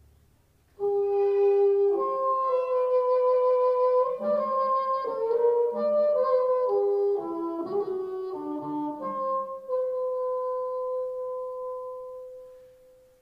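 Wind and brass instruments playing a slow passage of held chords. It starts suddenly about a second in and ends on one long note that fades away near the end.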